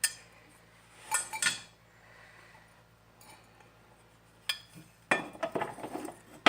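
Small metal parts and tools clinking and knocking against each other during hand work on a lawnmower: a sharp click at the start, a few clinks about a second in, then a quick run of clinks near the end.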